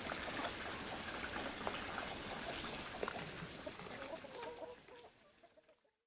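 Farmyard ambience: short grunts and clucking calls of livestock, pigs and chickens, over a steady high-pitched insect drone, all fading out over the last two seconds.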